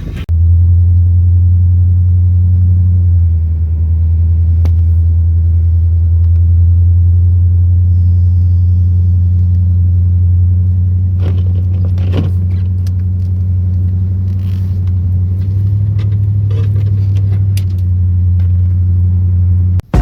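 Vehicle engine running with a steady low drone, its pitch shifting slightly a couple of times, with a few faint clicks over it.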